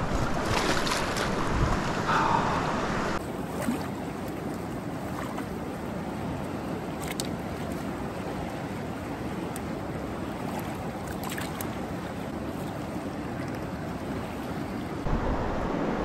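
A swollen river running high with runoff, rushing steadily, a little louder for the first three seconds.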